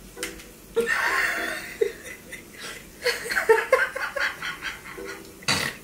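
Two women laughing hard together in several short fits.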